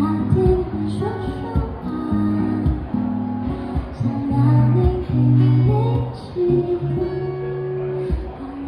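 Live guitar music: a guitar strummed and picked through chords in an instrumental passage of a song, without singing.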